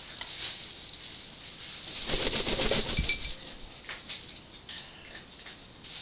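Parrot at its cage with clinking against the steel food bowl: a rapid rattling burst about two seconds in, ending with a sharp clink and a short high note, then a few faint ticks.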